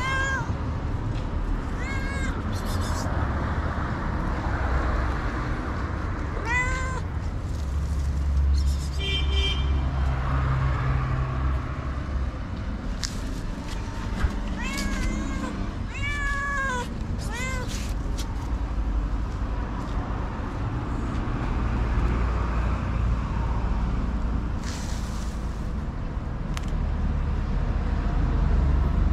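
A hungry long-haired tabby cat meowing: about seven short calls, each rising then falling in pitch, spaced a second to several seconds apart in the first two-thirds, then no more. A steady low rumble runs underneath.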